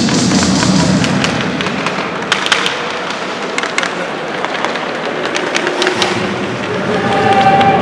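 Ice hockey play in an arena: a scatter of sharp clacks from sticks, puck and boards over the steady noise of the rink.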